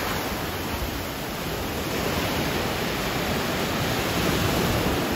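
Steady rush of sea surf.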